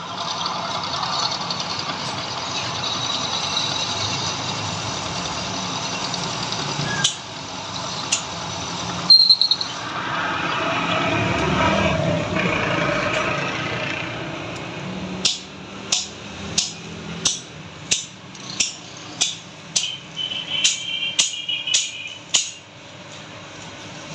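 Machine-shop noise: a steady machine running, with a few clicks and one sharp ringing metallic clank. This is followed by a run of about fifteen sharp knocks at roughly one and a half a second, quickening near the end.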